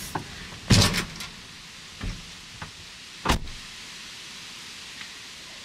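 Canvas tote bag being handled and slung onto the shoulder: a loud rustle about a second in, then two shorter rustles, the second of them near the middle, over a steady low hiss.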